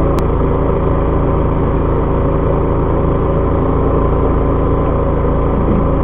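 Steady drone of the fishing boat's engine running at a constant idle, with one short sharp click just after the start.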